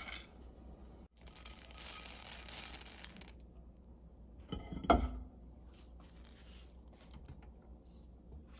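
Dry roasted split gram (dalia) scraped out of a non-stick pan and poured into a ceramic bowl: a rattling, pattering hiss of lentils for about two seconds. A few clicks and a sharp knock follow about five seconds in, then light ticks.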